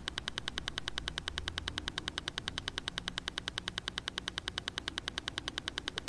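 Steady, rapid metronome-like ticking, about ten evenly spaced ticks a second, as a background pulse track under a guided-relaxation recording.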